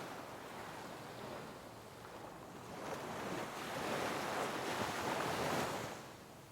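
Sea waves breaking on rocks: steady rushing surf that swells into a loud surge of crashing water about three seconds in, then falls away near the end.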